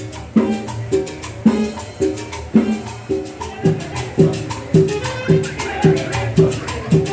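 Latin dance music with a steady beat, about two beats a second, and a shaker-like rattle keeping time.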